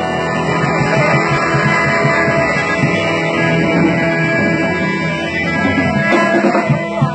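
Live blues band playing, with guitar and drum kit.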